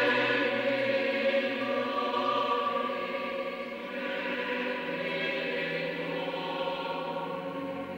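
A choir singing a slow chant in long, held chords, gradually growing quieter.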